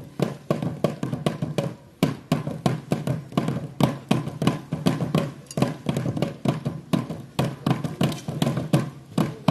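Percussion beaten in a quick, steady rhythm, about three sharp, knocking strokes a second, keeping the beat for a group dance.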